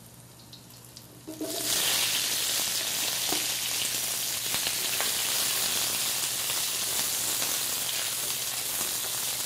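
Chopped greens and bell peppers dropped into hot oil in a wok: a sudden loud sizzle starts about a second and a half in and keeps going steadily as they are stir-fried with a wooden spatula.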